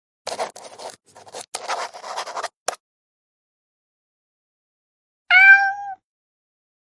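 Nokia 206 phone tones played back: about two and a half seconds of choppy, scratchy noise bursts, then after a silent gap a single short pitched note, about half a second long, with a quick rise at its start.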